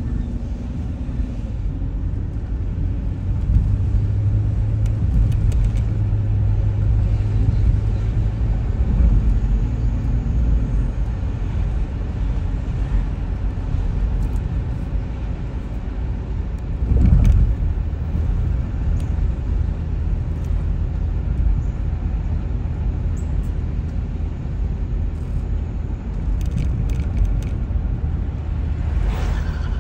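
Road and engine noise of a car driving slowly on city streets, heard from inside the car: a steady low rumble, with one brief louder thump about seventeen seconds in.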